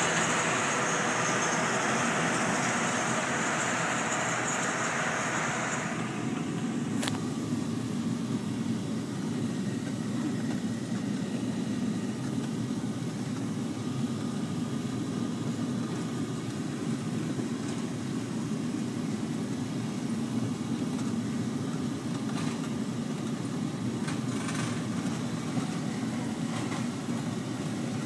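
Self-propelled hay windrower running steadily as it mows. The first six seconds carry a loud hiss over the engine; after that the engine is a duller, steady hum heard from inside a vehicle, with one sharp click about seven seconds in.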